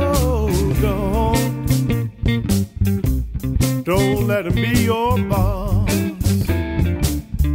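Gospel blues song in an instrumental break: a lead electric guitar plays bending, wavering notes over drums and bass.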